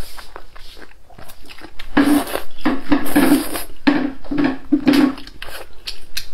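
Wide, sauce-coated noodles being slurped up: a run of loud, sucking slurps in the middle, with softer mouth and chewing noises around them.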